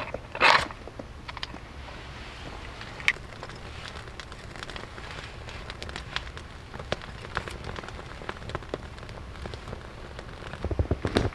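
A knife scraping a ferrocerium rod once, hard, to throw sparks into wood shavings, then the freshly lit tinder and split kindling crackling with many small sharp pops as the fire catches. Near the end, heavy steps crunch in snow.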